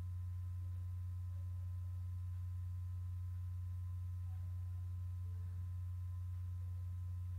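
A steady low hum with a faint, thin high whine above it. It is constant background noise in the recording, with no other sound.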